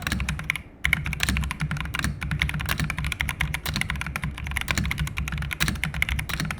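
Fantech Atom Pro83 mechanical keyboard being typed on fast: a dense run of clacky keystrokes with a brief pause a little under a second in.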